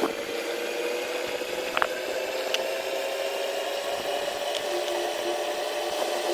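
A small electric motor, likely a power tool, running steadily with a hum whose pitch creeps up slightly, and a few light clicks.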